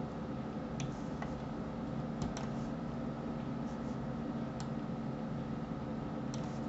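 Computer mouse button clicks: about half a dozen short, sharp clicks at irregular intervals, including a quick pair near the end, over a steady low hum.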